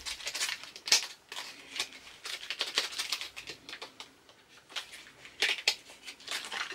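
Small cardboard eyeshadow-palette box being worked open: an irregular run of scratches, clicks and crinkles of card and packaging, with short pauses between them.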